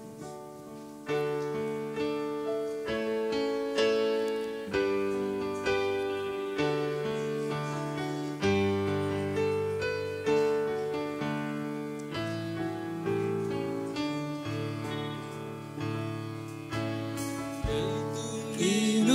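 A keyboard with a piano sound plays a slow hymn introduction. Struck chords ring and fade, changing about once a second, leading into a gospel song.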